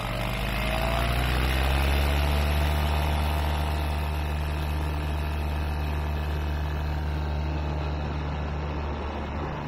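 Light aircraft's engine and propeller going to full power for take-off: the pitch rises over the first two seconds, then holds steady through the take-off run.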